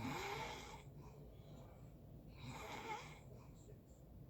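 A person snoring: breathy snores come about every two and a half seconds, one at the start and another about two and a half seconds in.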